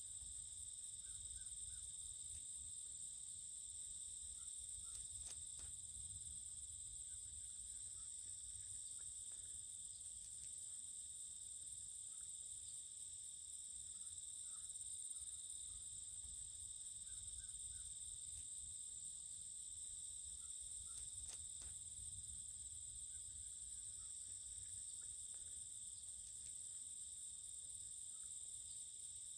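A steady, high-pitched chorus of insects trilling, crickets or similar, with a faint low rumble underneath and a couple of faint clicks.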